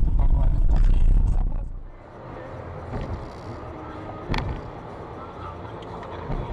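Car driving, heard from inside through a dashcam: a loud low rumble for the first second and a half, then, after a cut, quieter steady road noise with a sharp click about four seconds in.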